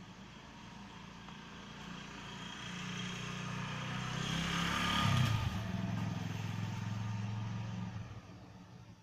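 A motor vehicle's engine passing by: it grows louder, peaks about five seconds in with a drop in pitch, then fades near the end.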